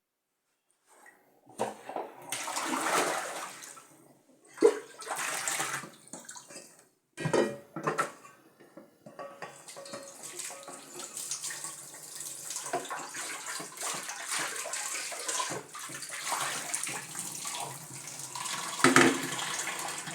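Water from a tap running and splashing while vegetables are washed by hand. It comes in short bursts at first and runs steadily from about nine seconds in, with a couple of sharp knocks.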